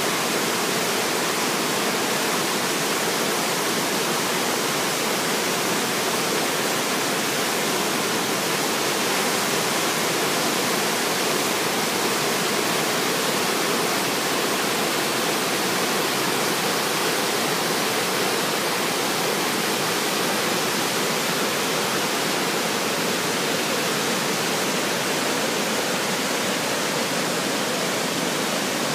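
Inglis Falls, a waterfall on the Sydenham River, pouring in heavy spring meltwater flow: a steady, unbroken rush of falling water.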